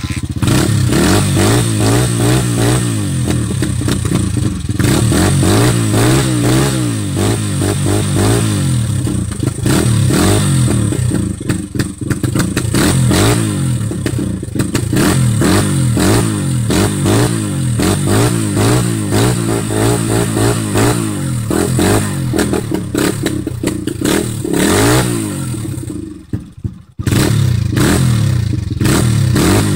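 Honda CRF110 dirt bike's single-cylinder four-stroke engine running just after its first cold start, the throttle blipped in repeated rises and falls of revs. About 26 seconds in the engine sags almost to a stall, then picks up again.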